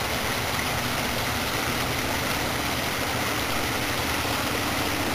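Small rocky stream running over stones, a steady rushing of water, with a faint low hum underneath.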